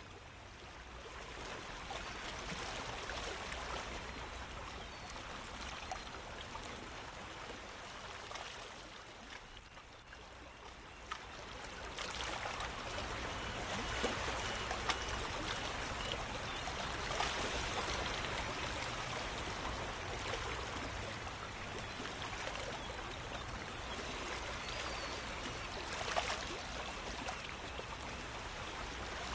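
Running water, a steady trickling rush that dips for a few seconds about a third of the way in and comes back a little louder.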